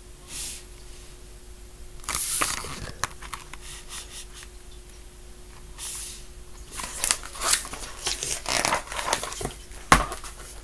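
Pages of a picture book being turned and handled: several short bursts of paper rustling, with a sharp click near the end.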